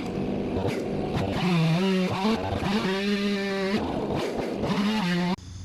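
Gas chainsaw running at high revs, its pitch dropping and recovering several times as it bogs under load in a cut. It stops abruptly near the end.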